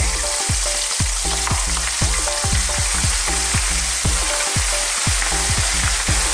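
Whole masala-rubbed Sheri fish deep-frying in hot sunflower oil: a steady, dense sizzle of bubbling oil with frequent short low pops.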